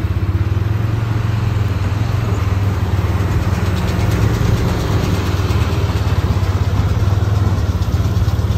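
John Deere tractor engine running steadily under load, pulling a Case IH LB334 large square baler as the rig passes close by, with the baler's machinery running along with it; a steady low hum.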